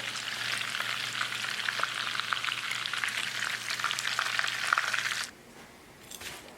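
Panko-and-parmesan-breaded chicken frying in a pan of oil: a dense, steady crackling sizzle that cuts off suddenly about five seconds in. One faint light tick follows.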